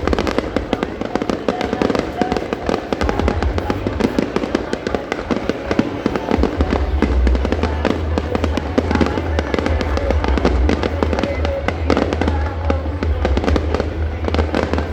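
Fireworks display going off in a dense, continuous barrage of rapid bangs and crackles, with a heavy low rumble that builds about halfway through.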